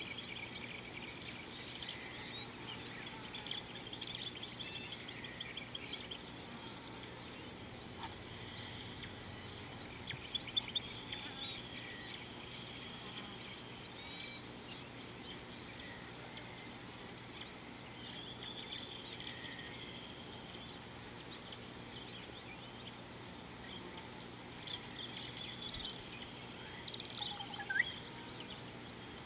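Many birds calling: scattered chirps, trills and short whistles from several birds, over a faint steady insect hum. A few calls stand out louder, about ten seconds in and near the end.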